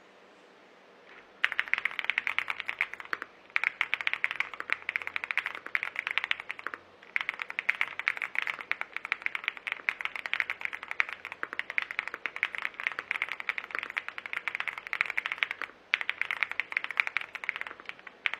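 Typing test on a Weikav Sugar 65 mechanical keyboard with Winnie linear switches, a black FR4 plate and a gasket-mounted aluminium case: fast runs of key presses that start about a second and a half in, with a few short pauses.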